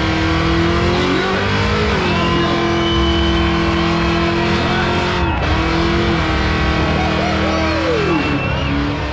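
Pickup truck engine held at high revs during a burnout, dipping briefly a few times, with its rear tyres spinning and squealing against the pavement.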